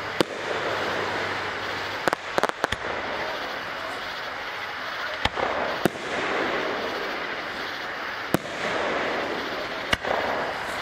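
Aerial firework shells bursting overhead with sharp bangs, about seven of them at irregular intervals, including a quick run of three or four about two seconds in.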